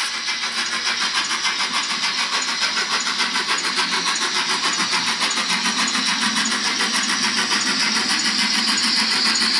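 Hornby 28xx 2-8-0 model locomotive's Zimo sound decoder playing recorded GWR steam exhaust through a small 28 mm tender speaker: a rapid, even beat of chuffs, growing slightly louder as the loco draws nearer.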